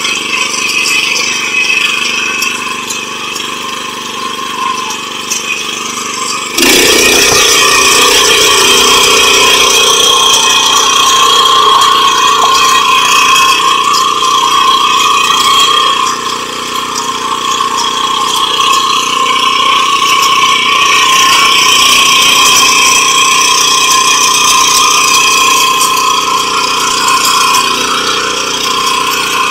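The 7 hp rotary tiller's (power weeder's) engine running steadily. About six seconds in it jumps suddenly louder and stays loud.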